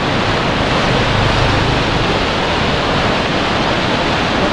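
Steady, loud rush of water.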